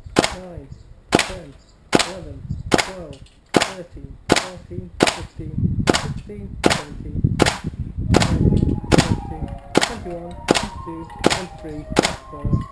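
WE L85A2 gas blowback airsoft rifle firing single shots in quick succession, roughly one and a half to two a second, each a sharp report from the shot and the blowback bolt cycling. It is working through a full magazine on one fill of gas.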